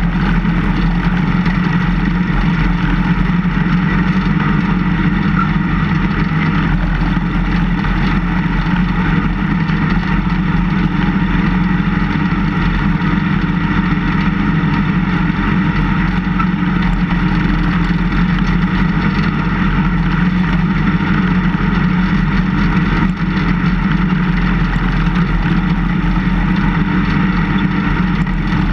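Engine of a snowplow vehicle running at a steady, unchanging pitch while it drives and pushes snow with its front blade.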